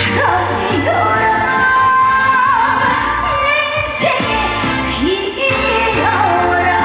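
A woman singing a trot song live over a backing band, holding long notes that slide up and down with a wavering vibrato.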